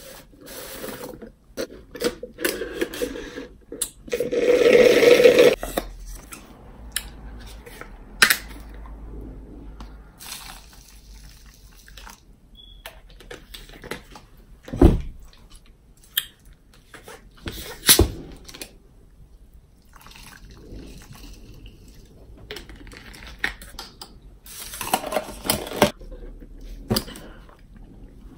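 Close-up drinking sounds: sips through a straw from a plastic cup, with a long, loud slurp about four seconds in, then Powerade poured from its plastic bottle into the cup. There are two sharp knocks midway and more sipping near the end.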